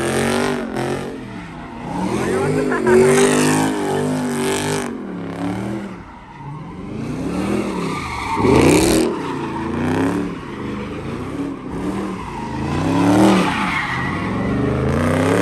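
A Dodge Charger doing donuts: its engine revs up and down over and over, with the tyres screeching as they spin on the pavement. The revs peak loudest about three seconds in, again near the middle, and once more near the end.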